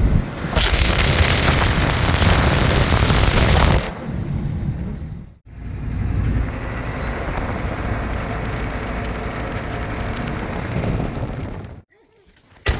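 Loud rushing wind buffeting the microphone on the move, heaviest for about three seconds near the start, then a steadier rush. It cuts off abruptly twice.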